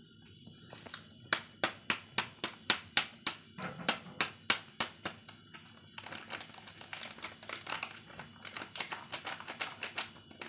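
A cat crunching dry kibble: a steady run of sharp crunches, about three a second, starting about a second in, then quicker and softer crunching from about six seconds in.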